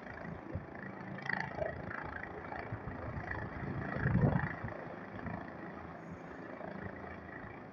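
Helicopter lifting and turning over a rooftop helipad: a steady distant rotor and engine noise, with a louder low rush about four seconds in.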